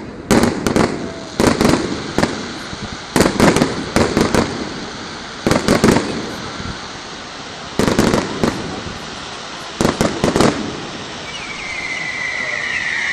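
Fireworks display: clusters of sharp shell bursts and bangs every second or two. A steady high hiss starts near the end.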